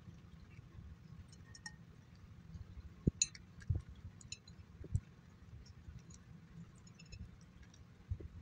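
A cat eating dry kibble from a clear glass plate: irregular crunching and small clicks of kibble and teeth against the glass, with a few louder knocks about three, four and five seconds in.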